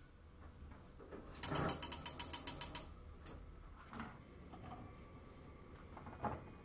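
Gas stove's spark igniter clicking rapidly, about a dozen sharp clicks in a second and a half. A couple of light single knocks follow, the last as okra is set down on a wooden cutting board.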